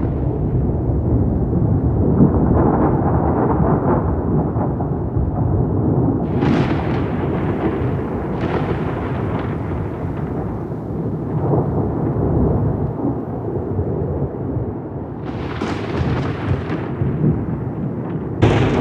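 Rolling thunder: a continuous low rumble, broken by sharper cracks about six seconds in, again about fifteen seconds in, and once more near the end.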